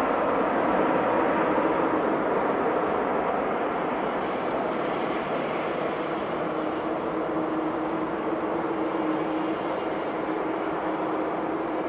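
Jet airliner engines running at taxi power: a steady rushing noise with a low hum that strengthens about halfway through.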